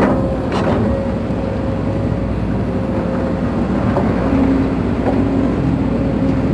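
Case CX210B excavator's diesel engine and hydraulic system running, with a steady whine over the engine sound and two knocks in the first second. The main hydraulic pump is suspected of being noisy.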